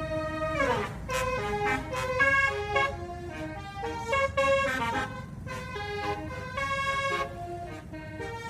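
Basuri 'telolet' bus horn, a multi-tone air horn, playing a quick tune of short notes at changing pitches. It opens with a held note that slides down in pitch just before a second in.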